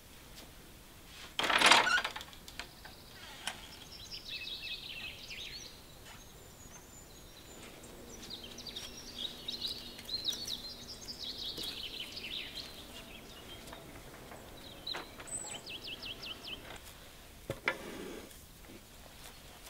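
Small birds chirping and twittering in bursts, with a wooden door being unbolted and opened about a second and a half in as the loudest sound. Near the end a whole pumpkin thuds down onto a wooden cutting board.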